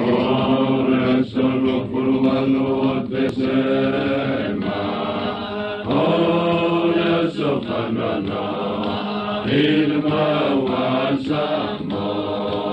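Voices singing a traditional Samoan song in a chanting style, in phrases with short breaks between them.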